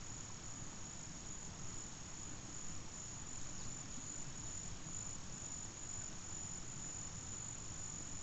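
Insects calling in a steady, unbroken high-pitched drone, over a low background rumble.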